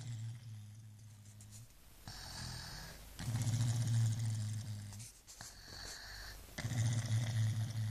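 A baby snoring: a low, buzzing snore about every three and a half seconds, each followed by a shorter, airy hissing breath.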